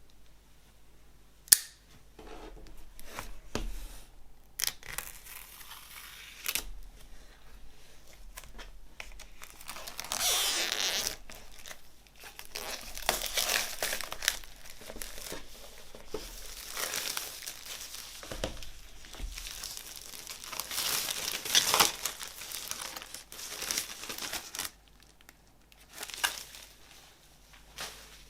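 The packaging of a vinyl LP being torn open, with long stretches of crinkling and tearing and a sharp click about one and a half seconds in.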